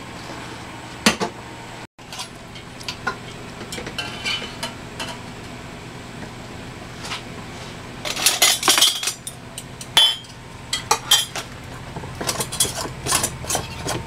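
Glass mason jars and metal canning lids and screw bands clinking and clattering as they are handled, in a dense run of sharp clinks past the middle, one with a short metallic ring. A steady low hum runs underneath.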